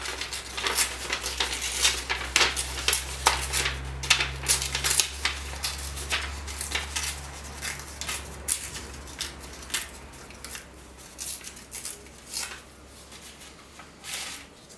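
Paper rustling and crackling as a sheet of collage paper is handled, with many small sharp clicks and taps. The crackles are dense at first and thin out over the second half.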